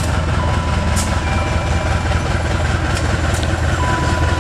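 Diesel locomotive pulling a passenger train slowly out of the station, its engine running with a steady low rumble. A thin steady whine comes and goes above it.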